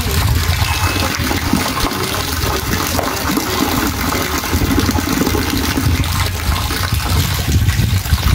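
Heavy rain pouring and water running, a steady rushing noise with a low rumble underneath.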